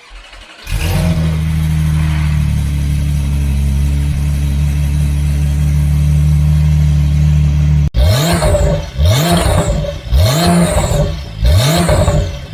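Porsche 992's flat-six engine breathing through a freshly fitted SpeedCraft titanium full exhaust: it fires up about a second in and runs at a steady fast idle. After about eight seconds it is blipped repeatedly, revving up and dropping back about once a second.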